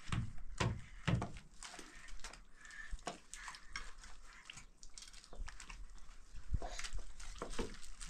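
Water splashing in a plastic washbasin as an infant is washed by hand: a string of short, sharp sounds, with a few louder ones in the first second or so.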